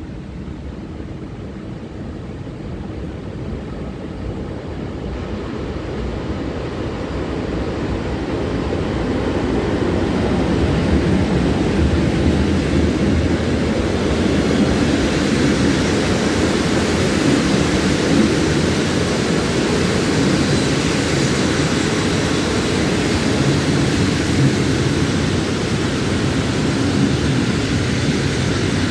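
Passenger train hauled by an EU07 electric locomotive running into the station: its rumble grows over the first ten seconds or so, then holds as a steady, even rolling noise of the coaches' wheels on the rails as they pass close by.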